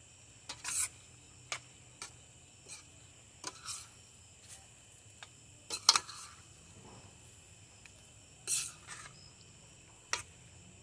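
A metal slotted spoon scraping and knocking against a stainless steel skillet as a chicken and vegetable stir-fry is stirred, in scattered strokes with the loudest about six seconds in. Crickets trill steadily underneath.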